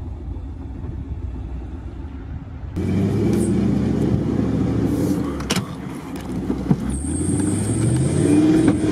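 Low off-road engine rumble. About three seconds in it gives way to a vehicle's engine revving up and down, heard from inside the cab as it drives through muddy ruts. A sharp knock comes midway, and a thin high whine near the end.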